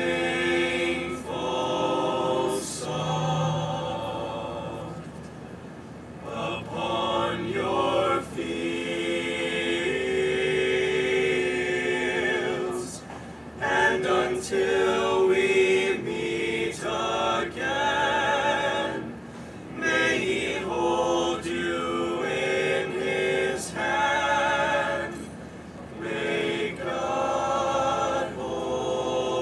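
All-male a cappella group singing a song in several-part harmony, in phrases broken by brief pauses.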